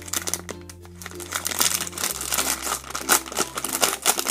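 Clear plastic packaging bag crinkling and rustling as it is handled, over background music with steady held low notes.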